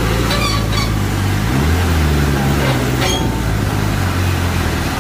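Heavy diesel truck engine labouring under load while towing a container trailer up a steep grade. Its pitch climbs about a second and a half in, with a few short high-pitched squeaks near the start and about three seconds in.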